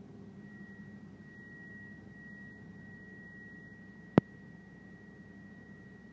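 Low steady hum of heavy machinery running, with a thin steady high-pitched tone over it that starts about half a second in, and one sharp click about four seconds in.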